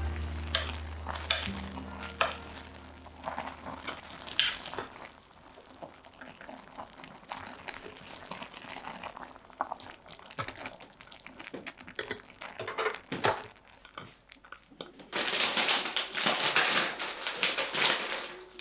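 Metal ladle stirring chopped vegetables in a stainless steel saucepan of steaming water, with scattered clinks and scrapes against the pot. Near the end there is a denser stretch of clinking and rustling lasting about three seconds.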